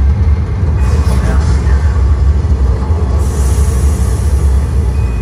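Loud, steady, deep rumble from the exhibit's sound system, the sound effect of a simulated spacecraft descending to Earth, with a hiss joining it about three seconds in.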